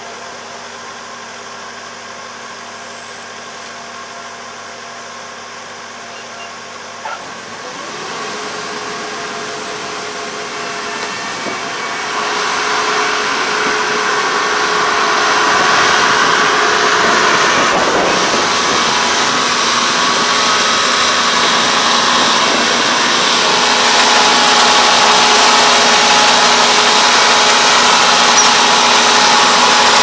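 Crawler rice combine harvester with its engine running steadily, growing louder as it drives closer. After a short knock about seven seconds in, a broad rushing machine noise builds up and stays loud from about twelve seconds on.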